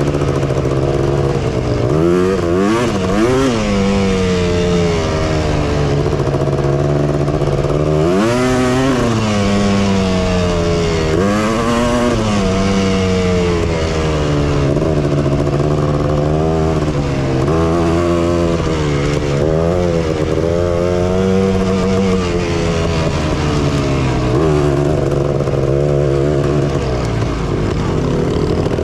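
Honda TRX250R ATV's two-stroke single-cylinder engine running under way. The revs rise and fall back several times as the throttle is worked.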